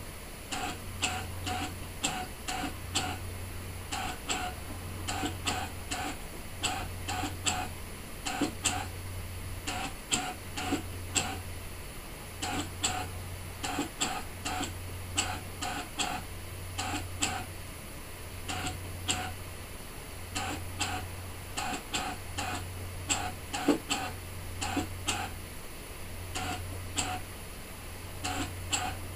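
Brother ScanNCut DX SDX1200 cutting machine drawing with a pen. Its motors hum in on-off pulses about every two seconds, with rapid ticking as the pen head and mat shift.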